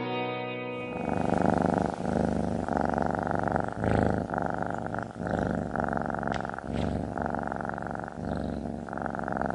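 Domestic cat purring close to the microphone: a steady buzz broken into rhythmic stretches with each breath in and out, starting about a second in as background music cuts off.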